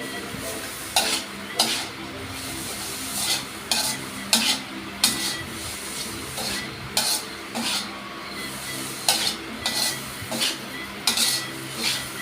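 Metal spatula scraping and clacking against a wok while stir-frying noodles, with a steady sizzle of frying underneath. The strokes come irregularly, about once or twice a second.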